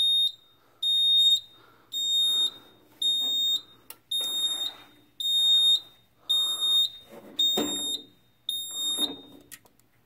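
EST voice-evacuation fire alarm sounding a high-pitched pulsing tone about once a second, with a thump about three quarters of the way in. The tone stops shortly before the end as the fire alarm panel resets.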